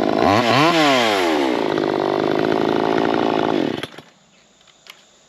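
VEVOR 58cc two-stroke gas chainsaw running just after being pull-started. It revs up once and back down in the first second and a half, runs steadily, then cuts off suddenly about four seconds in.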